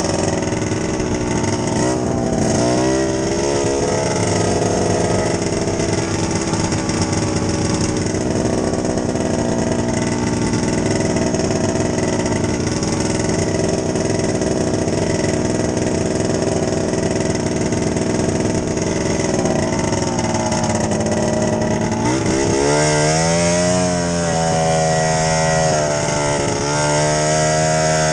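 Ski-Doo snowmobile engine running under way on a trail, its note rising and falling with the throttle. The pitch sweeps briefly about two seconds in, then dips and climbs back to a higher, steadier note near the end.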